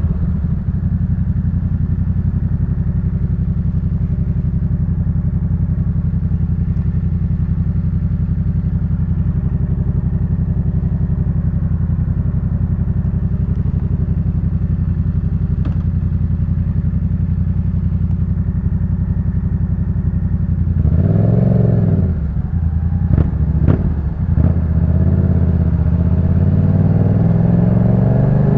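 Yamaha MT-07's 689 cc parallel-twin engine through a Jeskap K4 full exhaust, running at a steady note for about twenty seconds. Then it revs up and falls back sharply, the note breaks twice as the throttle is closed, and it climbs steadily in pitch as the bike accelerates.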